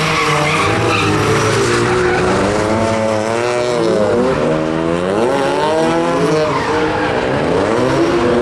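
BMW E36 drift car's engine revving hard, its pitch rising and falling again and again as the car is held in a slide, over tyres squealing against the tarmac.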